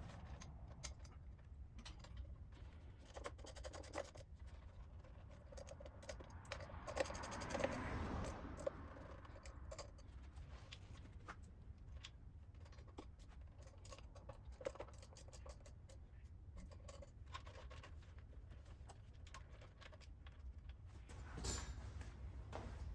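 Faint, scattered clicks and light scraping of small parts being handled, with a short busier run of sharper clicks about a third of the way in.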